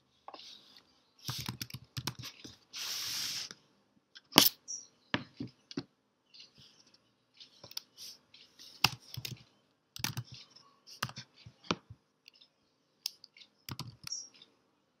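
Slow, irregular typing on a computer keyboard: single key clicks with gaps between them. A short hiss lasting about a second comes about three seconds in.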